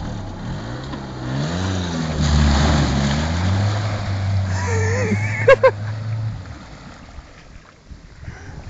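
Suzuki SJ413's four-cylinder petrol engine running and revving as the 4x4 drives into deep water, with water rushing and splashing around it. Two sharp knocks come a little past five seconds in, and the engine sound drops away about six seconds in.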